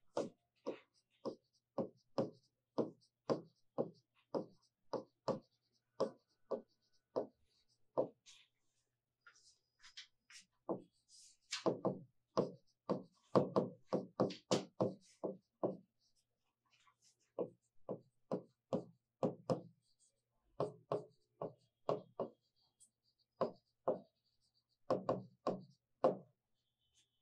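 Chalk writing on a blackboard: short taps and strokes, about two a second, in runs broken by pauses of a few seconds.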